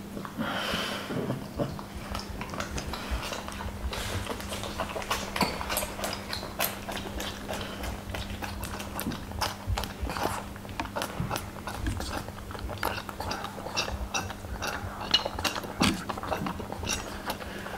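A lion cub suckling from a baby bottle: irregular wet sucking and smacking clicks throughout.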